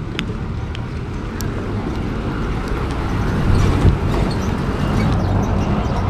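Busy street traffic: a low, continuous engine rumble that swells to its loudest a little past the middle, with a few sharp clicks in the first second or so.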